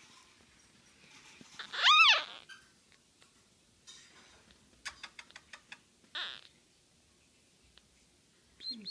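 Newborn Shih Tzu puppy giving one high squeal about two seconds in, rising and then falling in pitch. A few faint clicks and a short breathy puff follow later.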